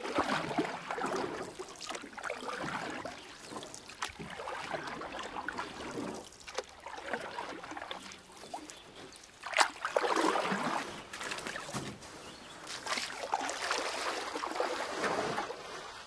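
Moving water splashing and trickling in irregular surges, loudest for a moment just before ten seconds in.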